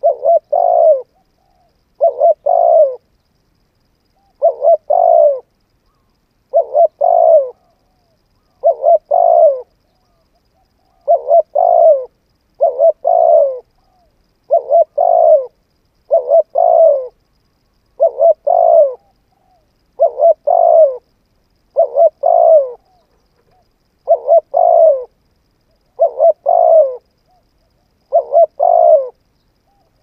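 Spotted dove cooing: a short phrase of two or three low coo notes, repeated about every two seconds with silent gaps between.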